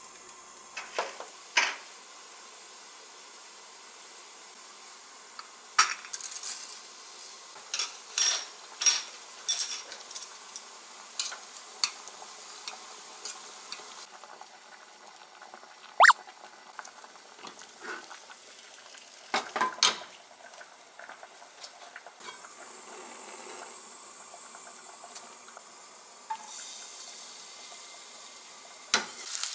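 Cooking on a gas stove: a pot of salted water boiling with a steady hiss, broken by sharp clinks and taps of metal chopsticks and utensils against the pot and a stainless frying pan as spaghetti is pushed in and stirred. Near the end, sliced garlic begins to sizzle gently in olive oil in the pan.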